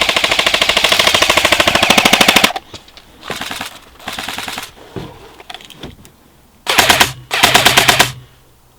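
Airsoft electric guns firing full-auto bursts in a rapid rattle. A long loud burst stops about two and a half seconds in. Two shorter, fainter bursts follow around three and four seconds in, then two more loud bursts near the end.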